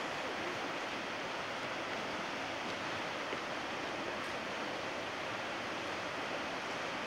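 Steady, even rushing noise of flowing floodwater.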